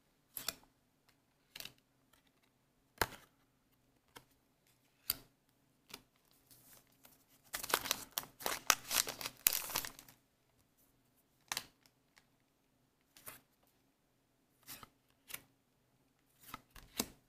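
Trading cards being handled and laid down one by one, making short light taps and slides, with a longer stretch of papery crinkling and rustling about eight seconds in.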